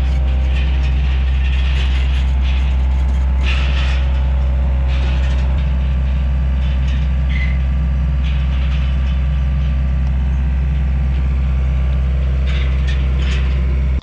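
A heavy machine's engine running steadily at one constant pitch, with metallic clanks and squeaks over it; it stops abruptly at the very end.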